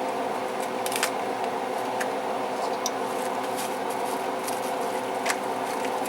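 Sugar sauce simmering in a pan on the stove, with scattered small pops and ticks over a steady hum.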